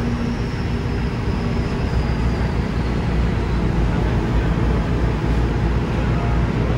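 A small boat's engine running steadily underway: a continuous low drone with an even hiss over it.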